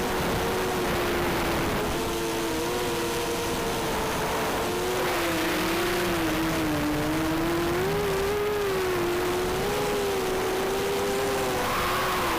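Eachine Falcon 180 racing quadcopter's brushless motors and propellers whining in flight, the pitch wavering up and down as the throttle changes, over a steady hiss of rushing air.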